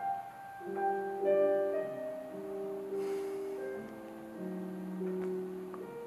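Background film music: a keyboard playing slow, held notes in chords, with a simple melody moving above them.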